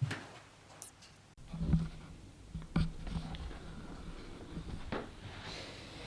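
A few light clicks and knocks of handling noise in a small room, over a low steady hum that sets in about a second and a half in.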